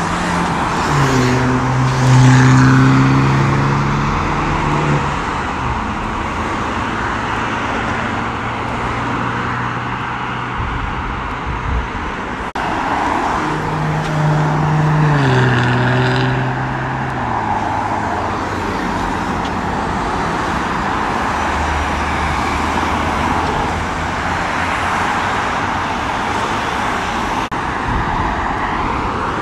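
Road traffic with cars accelerating past on a dual carriageway. One engine note comes up loud about a second in and holds for a few seconds; a second car goes by about halfway through, its engine pitch falling as it passes.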